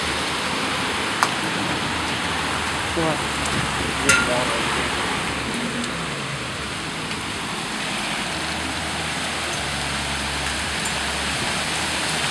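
Hailstorm: steady hiss of heavy rain and hail coming down, with a few sharp knocks of hailstones striking, the loudest about four seconds in.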